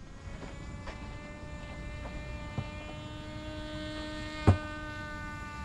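GEPRC Cinelog 35 FPV quadcopter sitting on the ground with its brushless motors spinning at idle: a steady whine that slowly grows louder. Two light knocks, a small one about two and a half seconds in and a sharper one about four and a half seconds in.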